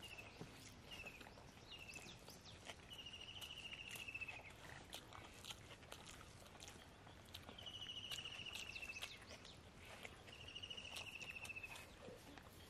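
Faint background birdsong: a short, rapid, slightly falling trill about a second long, repeated every two to three seconds, over scattered faint clicks.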